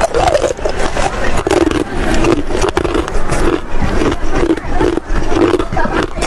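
Close-up crunching and chewing of hard chunks of freezer frost, a steady run of loud crunches about two to three a second.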